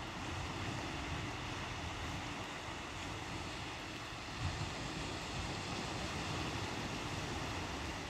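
Small waves of a calm sea washing onto a sandy beach in a steady wash, with a low rumble of wind on the microphone.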